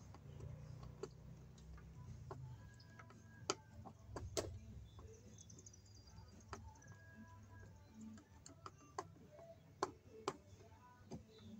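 Scattered light metal clicks and ticks of a hand tool working screws at a metal electrical box, irregular, a few of them sharper than the rest.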